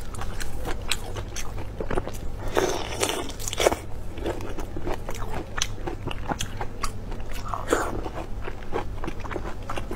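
Close-miked mouth sounds of a person biting and chewing whole marinated prawns: a steady run of crunches and small wet clicks, with a few louder bursts about a third of the way in and again about three quarters through.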